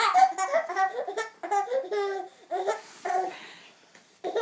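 Laughter in a run of short high-pitched bursts, a few a second, breaking off briefly about three and a half seconds in and starting again near the end.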